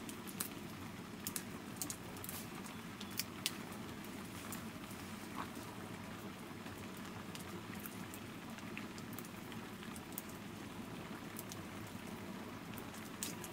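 Leafy greens being picked off their stems by hand: scattered small crisp snaps and ticks, irregular and a few seconds apart, over a steady low hiss.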